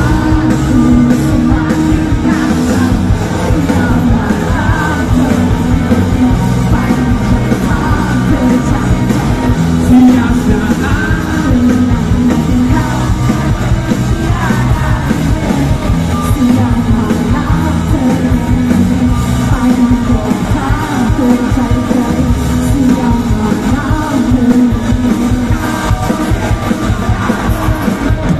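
Rock band playing live with a lead singer, electric guitars and keyboard over a steady, heavy bass, heard from within the crowd.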